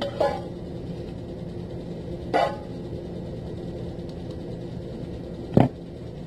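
Spoon and metal pot knocking briefly against a glass casserole dish as enchilada sauce is spooned on, over a steady low kitchen hum. The loudest is a sharp knock near the end.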